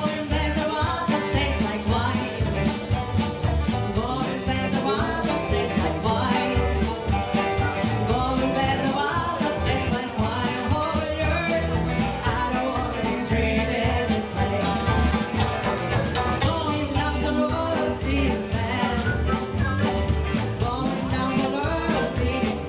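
Live blues band playing a song.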